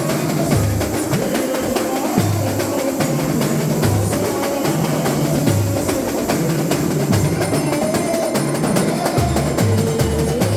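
Samba school bateria (percussion section) playing samba: deep surdo bass drums beat a repeating pattern under dense, quick strokes of the smaller drums.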